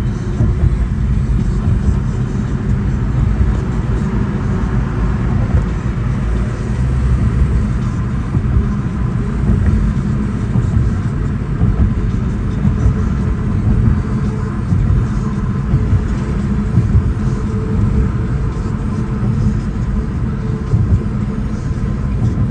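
A car travelling at highway speed, heard from inside the cabin: a steady, loud low rumble of tyre, road and engine noise.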